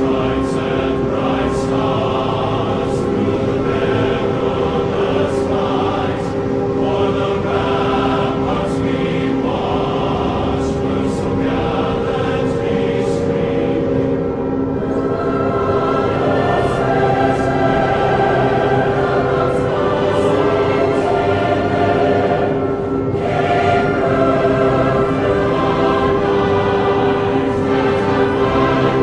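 Choral music: a choir holding long sustained chords over an instrumental backing, with a regular percussive hit about every second and a half.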